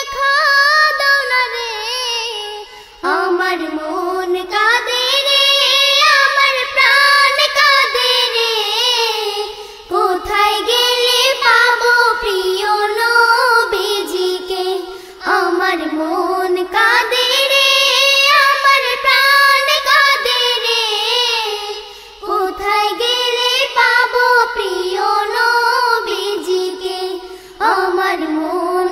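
A young girl singing a Bengali Islamic devotional song (gojol) through a microphone and PA, unaccompanied. Long melodic phrases break for short breaths every five to seven seconds.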